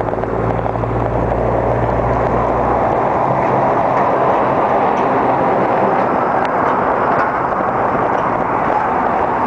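Steady rushing of wind on the microphone mixed with road traffic while riding a bicycle along a street, with a low rumble that stops about three seconds in.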